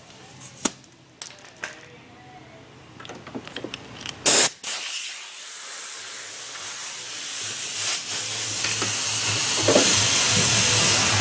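A few light clicks and clinks, then a sharp, brief hissing burst about four seconds in, followed by a steady hiss that swells louder through the rest.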